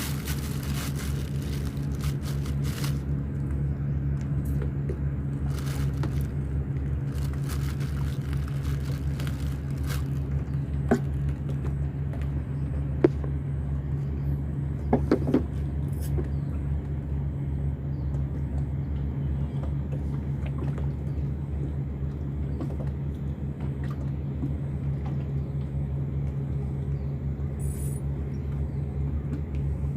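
An engine running steadily at an even speed, with a few sharp clicks about eleven, thirteen and fifteen seconds in.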